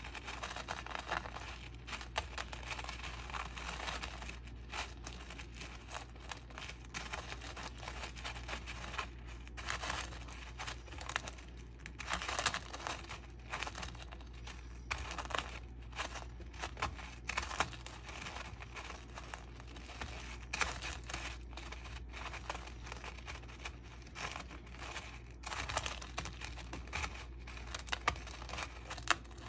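Dry, crisp rice cereal flakes rustling and crackling as a candy stick is stirred and dragged through a heap of them, coming in uneven surges with scattered sharper crunchy clicks.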